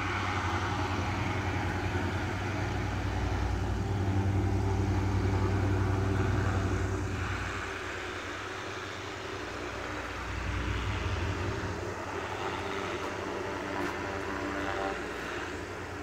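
Goodyear blimp's propeller engines running with a steady low drone, louder for the first several seconds and easing off about seven seconds in.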